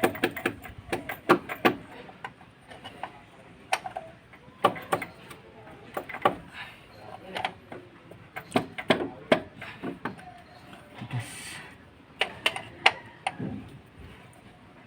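Irregular clicks, clinks and knocks of hand tools and metal parts as a stuck part is worked loose on a disassembled diesel engine.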